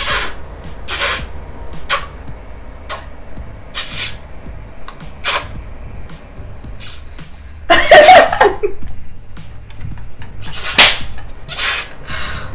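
A woman making short hissing mouth sounds through pursed lips, about one a second. A brief burst of voice comes about eight seconds in, and another near the end.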